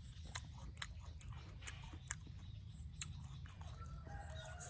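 Crisp fresh rose apple being bitten and chewed: scattered sharp crunchy clicks at an irregular pace.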